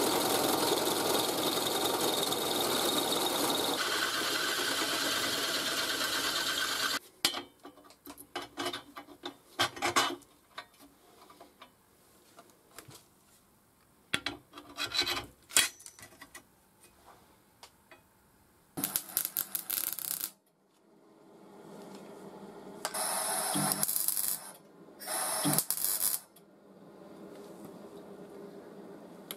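Drill press boring a hole through steel angle iron: a steady, loud cutting noise for about seven seconds that stops abruptly. After it come scattered clicks and knocks of metal parts being handled, and a few short, harsh bursts of noise in the second half.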